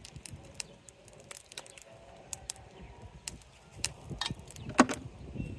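Kitchen knife tip clicking and scraping against a crab's shell while prying at its underside: scattered sharp clicks, with one louder crack near the end.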